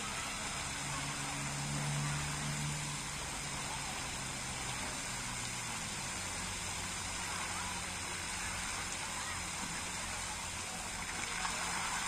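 Park fountain jets spraying and splashing into a pond, a steady rush of water. A brief low hum sounds about two seconds in. Near the end the splashing grows louder as the jets open into a wide cone of spray.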